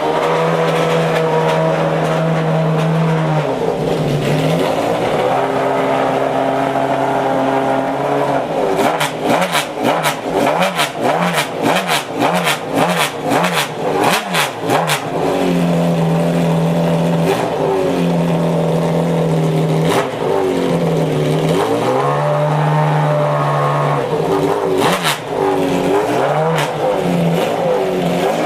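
McLaren F1 GTR LongTail's naturally aspirated BMW V12 warming up, held at steady raised revs with short dips. In the middle it gets a run of rapid throttle blips with sharp cracks between them, and later it has a rising rev and a few more blips near the end.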